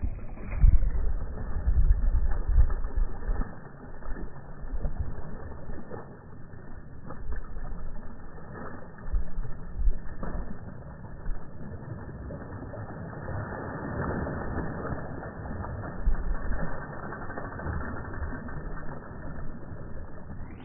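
Spinning fishing reel being cranked, its gears whirring and ratcheting, over low uneven rumbling that is heaviest in the first few seconds.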